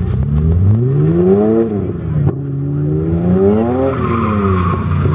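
BMW drift car's engine revving hard, climbing in pitch twice with a brief drop between and easing off about four seconds in, with tyres squealing near the end.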